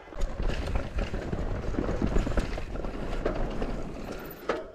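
Electric mountain bike rolling down a rough dirt trail: tyre noise with a low rumble, and repeated knocks and rattles from the bike over bumps and roots.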